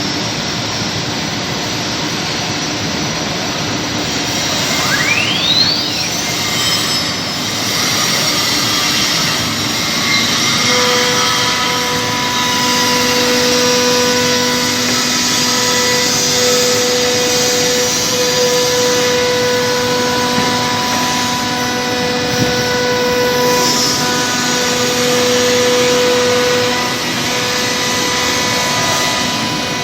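Heavy-duty CNC router with a 9 kW spindle running: a steady rushing machine noise, with a whine that sweeps steeply up in pitch about five seconds in and steady humming tones that set in about ten seconds in.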